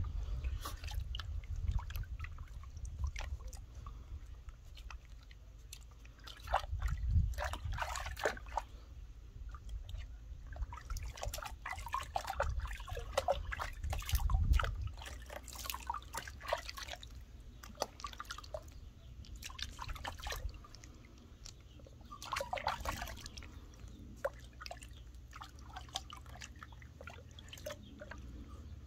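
Water splashing and dripping in a plastic tub as a puppy is washed by hand: irregular small splashes and drips, a few louder ones in bunches.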